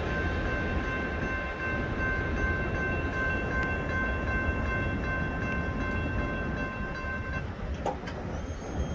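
Low rumble of a Union Pacific freight train rolling past a grade crossing, with a steady high ringing tone over it that cuts off about seven and a half seconds in.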